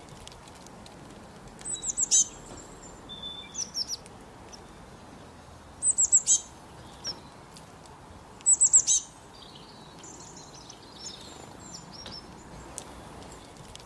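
Northern cardinal singing: three phrases of four or five quick, high, down-slurred whistled notes, a few seconds apart, with softer chirps between them.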